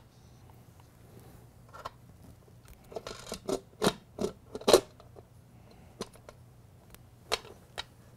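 Scattered small clicks and knocks as an all-metal G scale model locomotive is handled and shifted on its metal shipping plate. The clicks come thickest a few seconds in, the loudest near the middle, with a couple more near the end.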